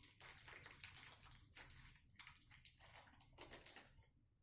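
Faint, irregular rustling and little clicks of small PC-assembly screws being handled and sorted; it dies away near the end.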